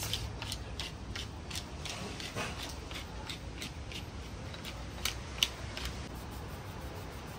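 Wooden pepper mill grinding peppercorns: a series of short rasping crunches with each twist, two or three a second, with one louder click about five seconds in.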